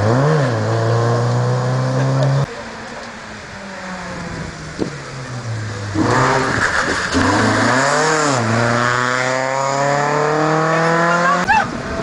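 Rally car engines at full throttle. One car holds high revs and cuts off abruptly about two and a half seconds in. After a quieter stretch, another car comes in loud, with the revs falling and briefly rising as it slows, then climbing steadily as it accelerates hard, before this too cuts off abruptly near the end.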